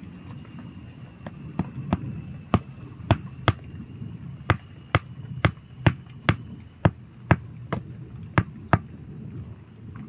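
Wooden stake being driven into the ground with a small hatchet: about sixteen sharp knocks, roughly two a second, stopping near the end.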